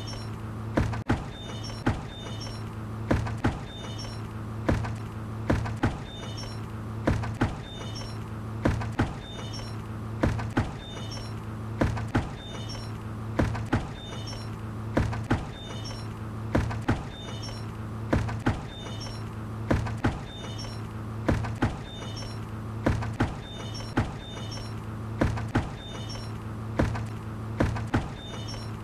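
A hanging bucket knocking over and over in a steady loop, with a short high squeak at most knocks, over a steady low hum.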